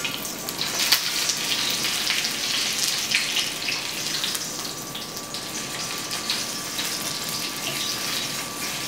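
Breaded chicken rollatini shallow-frying in hot oil in a sauté pan: a steady sizzle with fine crackling.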